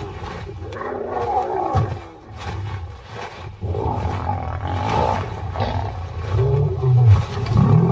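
Lionesses roaring and snarling as rival prides clash in a fight, loudest near the end.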